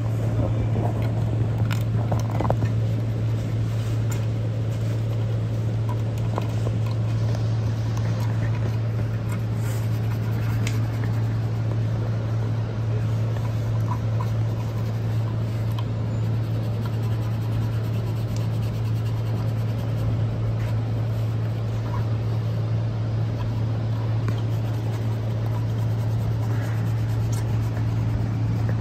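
A steady low machine hum runs throughout, with scattered light scrapes and clicks of a hand tool working old gasket sealant off the flange of a steel engine oil pan.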